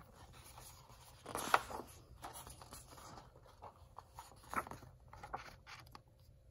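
Paper pages of a picture book rustling as the book is handled and a page is turned, with louder crinkles about a second and a half in and again around four and a half seconds in.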